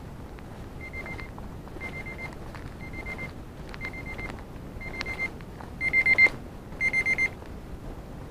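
Digital timer alarm beeping: seven short bursts of rapid high beeps, about one a second, with the last two much louder. It marks the end of a 25-minute interval.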